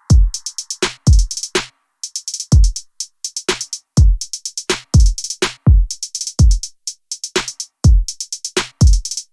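Electronic background music with a drum-machine beat: deep kicks that drop in pitch, with fast hi-hat ticks between them.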